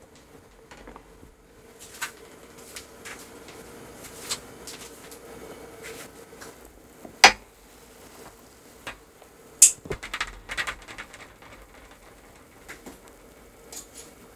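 Metal baking sheet handled with a silicone oven mitt, giving scattered light clicks and knocks. There is a sharp clack about seven seconds in and a burst of clattering around ten seconds.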